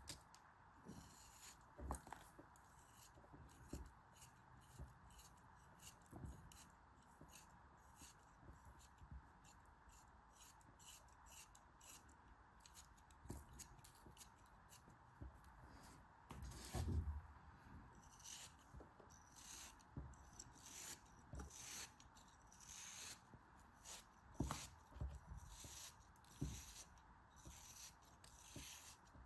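Quiet unboxing sounds: a long run of small snips, clicks and crinkles from scissors and packaging being handled. The rustling grows denser about two-thirds of the way through, and there is a single dull knock a little past halfway.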